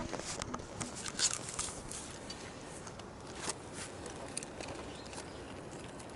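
Scattered light clicks, taps and rustles of a just-landed black sea bream being handled and unhooked, with the loudest ticks about a second in and again after about three seconds.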